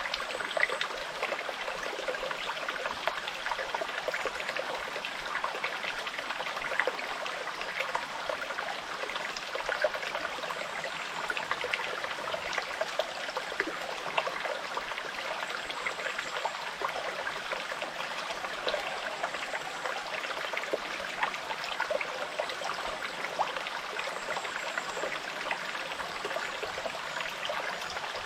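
Small forest brook babbling steadily over stones, with a constant trickling and splashing.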